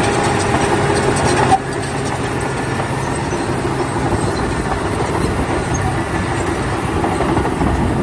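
Caterpillar D9T crawler bulldozer working, its diesel engine running steadily under load. The sound drops slightly in level about a second and a half in.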